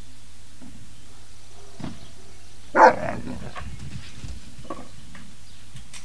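A puppy gives a single short bark about three seconds in.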